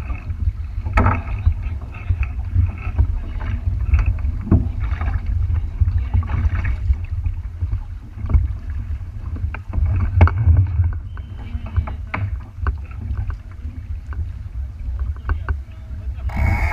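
Small boat on the water: a steady low rumble with irregular knocks and splashes. The sound changes abruptly to a brighter, fuller noise just before the end.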